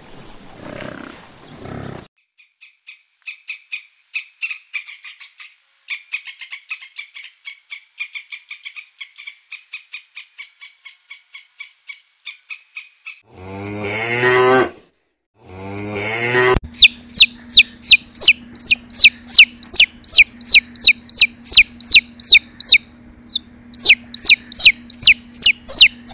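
A run of rapid, high bird chirps, then a calf mooing twice about halfway through, then ducklings peeping loudly and rapidly over a low steady hum in the last third.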